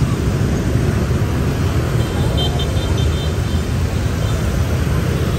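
Dense motorbike and scooter traffic streaming past: a loud, steady rumble of many small engines, with a quick run of high beeps about two seconds in.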